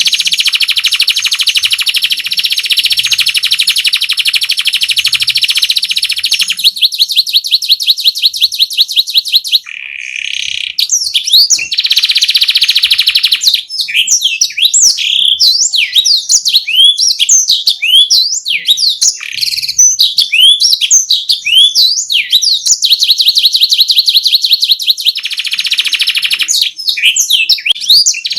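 Domestic canary singing a loud rolling song: long dense rolls at the start and near the end, rapid even trills, and in the middle a long run of quick swooping whistled notes.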